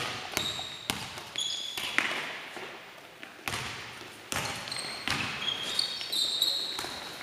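A basketball being dribbled on a wooden gym floor, a run of sharp bounces at an uneven pace, each echoing through the hall. Short high squeaks of players' shoes on the floor come several times, mostly in the second half.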